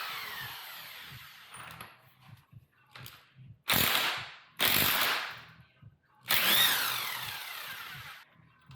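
Impact wrench run in four bursts, its motor spinning up and winding down each time, to loosen the 27 mm front sprocket nut of a Kawasaki ZX-6R.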